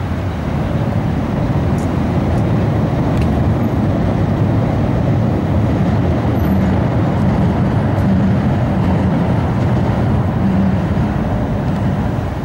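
A boat's engine running steadily, a low drone under a loud, even rush of water and wind.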